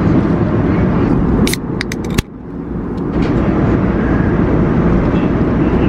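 Steady low rumble of an airliner cabin in flight: engine and airflow noise. A few sharp clicks come about a second and a half in, and the noise drops suddenly just after two seconds before building back up.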